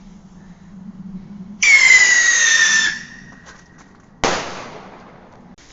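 A firework shrieks with a loud whistle for about a second and a half, its pitch falling slightly. About a second later comes one sharp bang that dies away.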